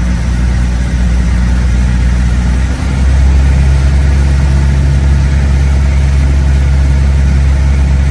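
Single-engine Piper light aircraft's piston engine and propeller droning steadily, heard loud inside the cabin in flight. About three seconds in, the engine note shifts and grows a little louder.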